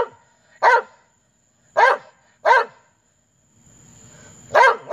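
A dog barking in single sharp barks, about five of them with uneven gaps and a longer pause before the last two near the end. They are barks of frustration over a bone.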